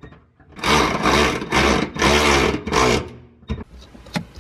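A bolt being run through the van's floor into a nut held by a wrench, giving a run of rasping metal strokes about two a second. The strokes stop about three seconds in, followed by a few small clicks.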